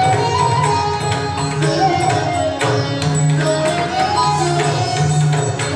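Indian classical Odissi dance music: hand-drum strokes in a steady rhythm with sharp percussion accents, under a melody that slides down and rises again.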